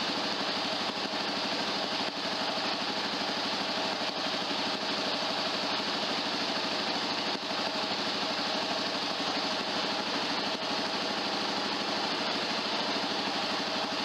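2022 Kawasaki KLR 650's single-cylinder engine idling steadily.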